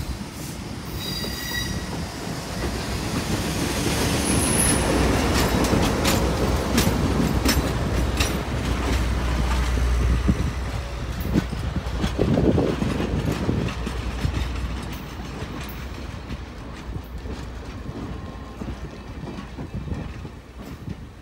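Alco RS-32 diesel locomotive and its stainless-steel passenger cars passing close by. A deep engine rumble builds over the first few seconds, then wheels click over the rail joints with a brief high squeal, and the sound fades away through the second half.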